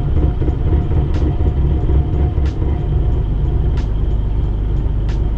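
Nissan Skyline R31's RB30 straight-six engine idling just after a cold start, the car having sat for a week. The idle is rough and uneven for about the first three seconds, then settles steadier, with a faint click about every 1.3 seconds.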